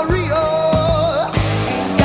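Rock song playing, with a singer holding one wavering note over guitar and a steady drum beat.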